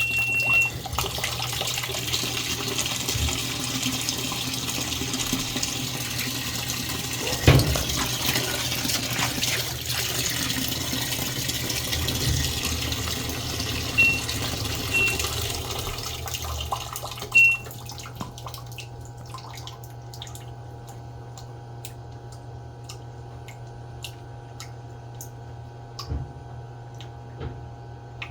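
Washing machine filling with water: a steady rush of inflowing water over a low hum, with a few short high beeps and a couple of knocks. About 18 seconds in the water stops, leaving the low hum and faint ticking.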